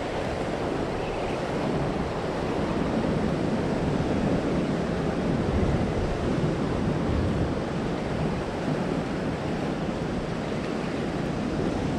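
Ocean swell surging and breaking against the rocks, with wind buffeting the microphone: a steady rushing noise.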